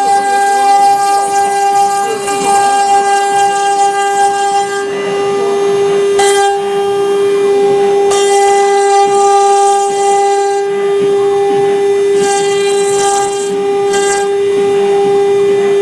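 CNC router spindle running with a steady high whine, with stretches of louder hissing noise coming and going over it.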